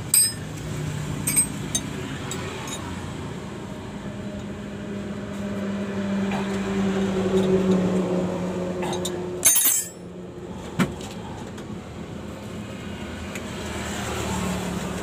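An 11 mm wrench clinking and ticking against the bolts as a new clutch master cylinder is tightened in place, with a sharp metal clatter about nine and a half seconds in. A low hum under it swells and fades in the middle.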